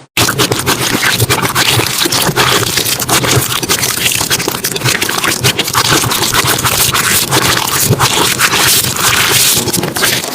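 Slime being pressed and worked by hand, giving a dense, continuous run of crackling, scraping clicks.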